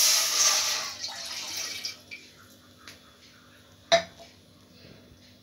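Water poured from a glass into a stainless-steel pot, splashing loudly at first and fading away over about two seconds. A single sharp clink a little before the four-second mark.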